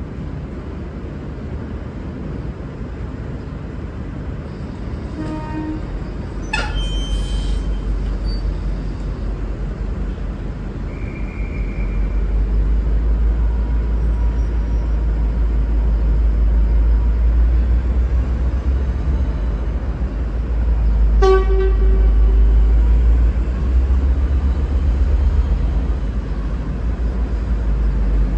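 V/Line N class diesel locomotive rumbling as it shunts, louder from about six seconds in, with a brief hiss. It sounds two short low-note horn toots, a brief one about five seconds in and a longer one of about a second past the twenty-second mark.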